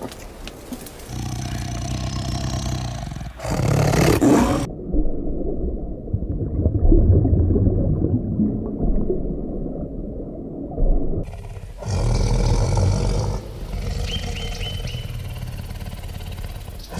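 A string of edited wild-animal sounds: deep roars and growls, a muffled stretch in the middle, then more low growling with a few short high chirps near the end.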